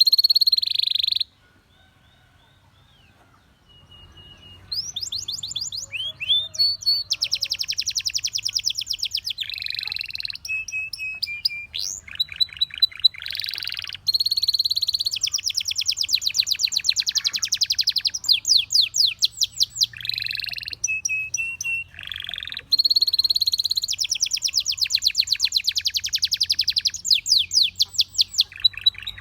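Domestic canary singing: long, fast trills of rapidly repeated high notes mixed with short whistled tones. The song breaks off about a second in and picks up again after about three seconds of near quiet.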